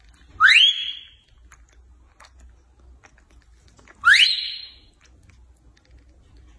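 Two loud whistle-like squeals, each rising sharply in pitch and then held briefly, about three and a half seconds apart. Beneath them, faint sucking and mouth sounds from a baby monkey feeding at a milk bottle.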